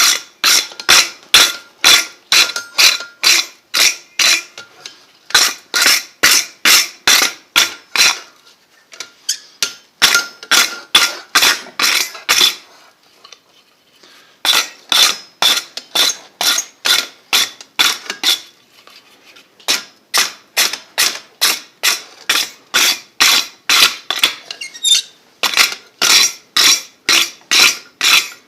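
Blacksmith's hammer striking hot steel on an anvil while forging a workbench holdfast, about three ringing blows a second in runs of several seconds with short pauses between.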